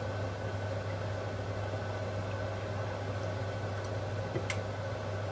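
Steady low background hum with faint steady tones over it, and a single faint click about four and a half seconds in.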